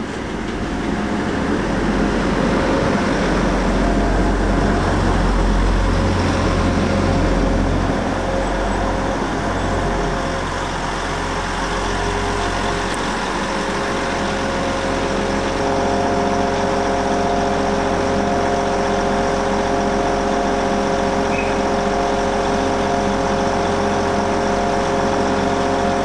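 Arriva Trains Wales diesel multiple unit rolling slowly past on the platform line with a heavy engine rumble. From about midway it settles into a steady idle with a droning hum.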